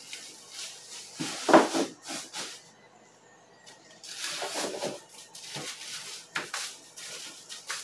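Frozen sacolés (ice pops in small plastic bags) being handled and dropped into the cart's box: irregular rustling of plastic and knocks, the loudest about a second and a half in.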